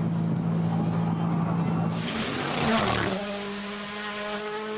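Rally car engine held at steady high revs, with a loud rush of noise about two seconds in as the car passes close. After that the engine note settles steady again, slightly higher.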